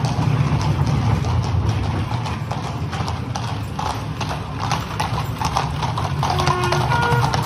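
Hooves of a team of harnessed horses clip-clopping on a paved street as they draw a coach past.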